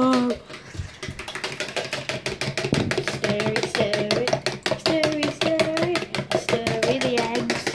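Eggs being beaten by hand in a plastic jug: a rapid, even clicking of the utensil striking the sides. From about three seconds in, a voice hums a tune over it.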